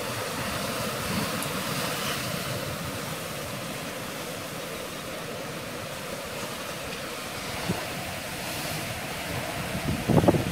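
Ocean surf breaking over a rocky shore, a steady rushing wash of waves. Near the end, wind gusts buffet the microphone.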